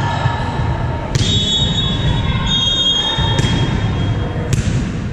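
A volleyball bounced on a hardwood gym floor three times, sharp knocks about a second in, near three and a half seconds and near the end, over the steady murmur of a crowd in the hall. A high thin squeak or tone holds for about two and a half seconds after the first bounce.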